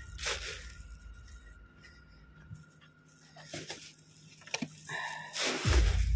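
Footsteps on a dirt and gravel path with a full plastic garbage bag rustling as it is carried, in scattered short scuffs and crinkles, with a louder rustle near the end.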